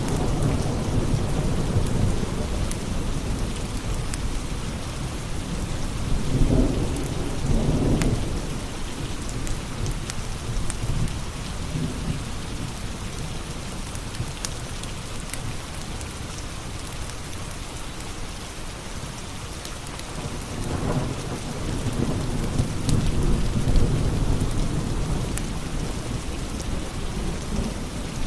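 Steady rain with low rolling thunder that swells several times, near the start, about a quarter of the way in, and again in the last third. Scattered sharp pops from a crackling wood fire sound over it.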